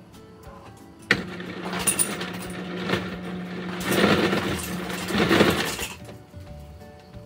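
A small motor-driven appliance switches on abruptly about a second in and runs for about five seconds, a steady hum under loud rough noise that swells twice before it cuts off.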